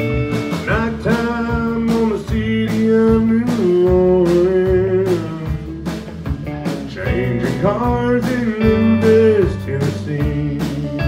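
Live country band playing an instrumental break: an electric guitar takes the lead with bent notes over a drum kit beat, electric bass and strummed acoustic guitar.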